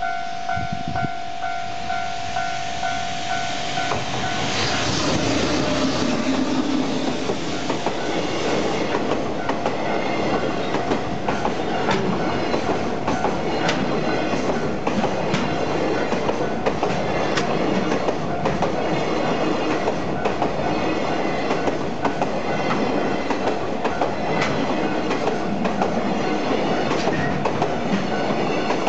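Japanese level-crossing warning bell ringing in a pulsing tone, then a freight train arrives about four seconds in and runs over the crossing, its wheels clattering over the rail joints in a steady rhythm as the wagons go by.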